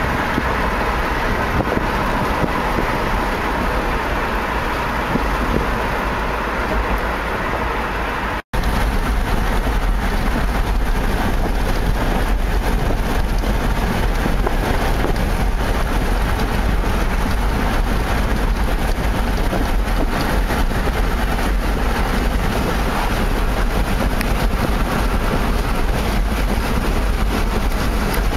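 Steady road and wind noise from a car travelling at highway speed, with wind buffeting the microphone. The sound drops out for an instant about eight seconds in, then returns with a heavier low rumble.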